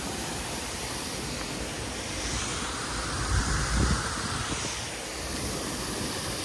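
Outdoor background noise: a steady hiss with a low rumble that swells briefly a little past halfway.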